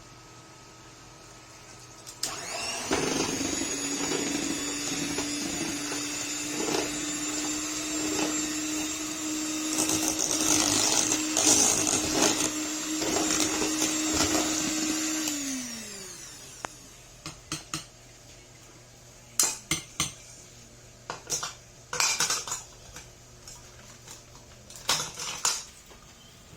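Electric mixer motor switching on about two seconds in and running steadily for about thirteen seconds, mixing the dissolved gelatin into the cream-cheese cream, then winding down with a falling pitch. It is followed by a scatter of sharp knocks and clinks.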